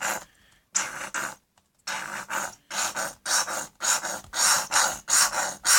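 Sunscreen being added to slime glue and worked in, heard as a run of short rasping, squelching strokes, about two or three a second.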